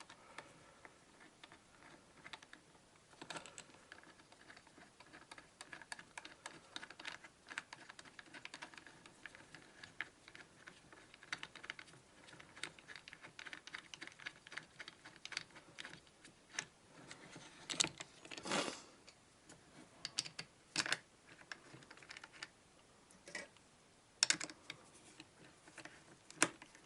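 Light, irregular clicks and ticks of small metal parts being handled as a bolt is turned by hand into a threaded furniture insert in a wooden clamp block, with a few louder knocks in the second half.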